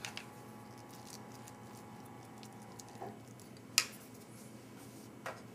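A few light clicks and taps from a spoon and a plastic meal tray being handled, the loudest one about two-thirds of the way through, over a quiet steady room hum.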